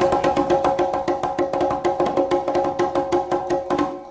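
Closing bars of cumbia music: fast, even percussion taps over a held keyboard chord, fading out near the end.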